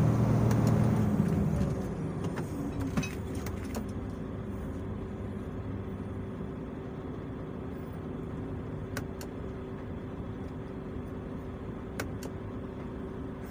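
Dump truck diesel engine heard from inside the cab, running loud under throttle on a climb, then dropping to a quieter steady run about two seconds in. A few light clicks or knocks come through it.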